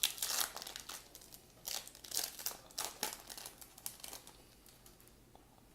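Plastic-foil wrapper of a baseball card pack crinkling as it is torn open, a quick run of crackles that dies away after about four seconds.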